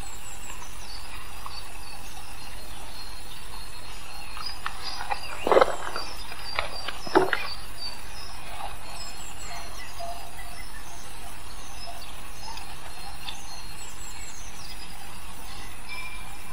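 Faint bird chirps over a steady hiss and low hum, with two short knocks about five and a half and seven seconds in.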